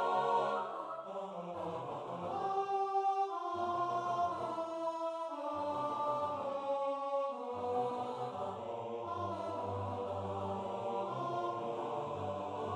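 Four-part a cappella choral music: voices holding chords that change every second or so, with quick detached triplet figures in the upper and lower voices in the second half.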